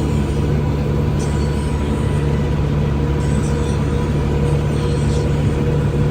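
Tractor engine running steadily under load while mowing hay, a constant drone with a thin steady whine above it.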